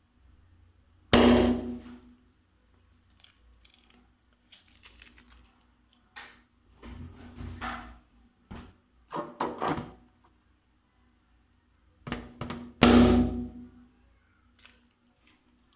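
Balloons popping: two loud pops, about a second in and near the end, each with a short ringing tail, and quieter sharp sounds between them.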